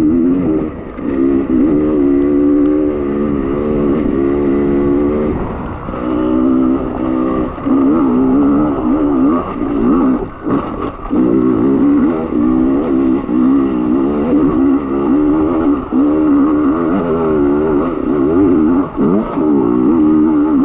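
Beta enduro motorcycle engine being ridden over a rough trail, its pitch rising and falling constantly as the throttle is worked, with brief drops when the throttle is shut about ten seconds in.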